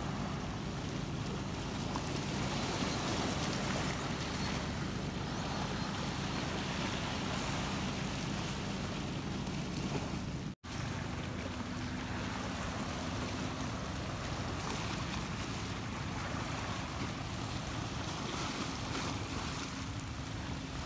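Sea waves washing and breaking over shoreline rocks, with wind on the microphone and a faint low steady hum underneath. The sound cuts out for an instant about halfway through.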